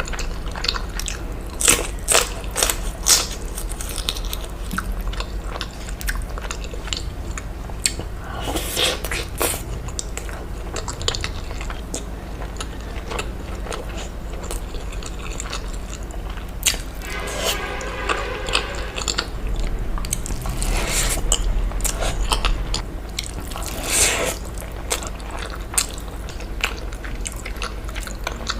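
A person biting and chewing food up close, with repeated crunches and wet mouth sounds; the sharpest crunches come in the first few seconds.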